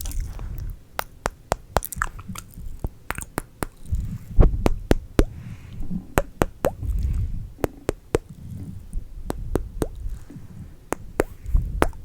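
Close-miked ASMR mouth sounds: an irregular run of wet clicks, pops and kissing sounds, several a second, with soft low rumbles of breath on the microphone between them.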